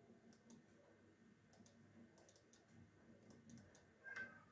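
Faint computer mouse clicks, a few scattered through near silence, with a brief slightly louder sound near the end.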